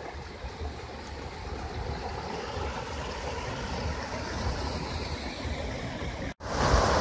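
Water rushing steadily over a low river weir. It cuts out for an instant near the end and comes back louder.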